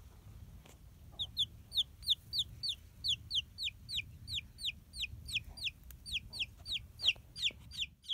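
A chick peeping loudly and repeatedly: short, high notes that each slide downward in pitch, about three a second, starting about a second in.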